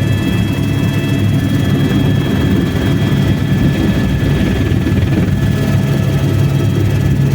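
Helicopter in flight: steady, loud rotor and engine noise with a thin, steady high whine above it.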